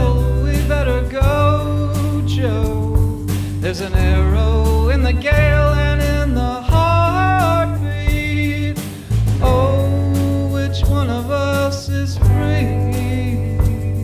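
Background music: a song with a heavy, pulsing bass, drum hits and a bending, singing-like melody line over it.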